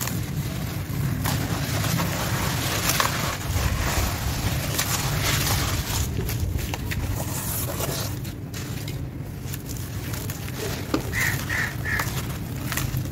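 Dry sand-cement chunks crumbled by hand into a tub of muddy water: a steady gritty crunching and pattering of falling grit and water, with many small clicks, over a constant low rumble. Three quick high chirps come close together near the end.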